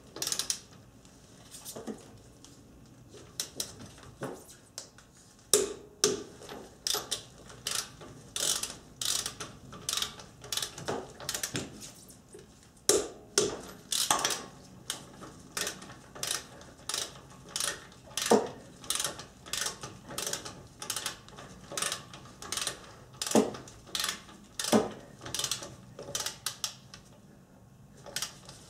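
Torque wrench ratcheting in many short, quick strokes as wheel lug nuts are tightened to 80 foot-pounds, with brief pauses between nuts.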